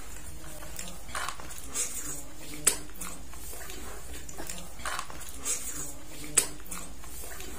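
Close-miked eating of satay: chewing and lip smacks as meat is pulled off bamboo skewers with the teeth, with scattered short sharp clicks, two louder ones about three and six and a half seconds in.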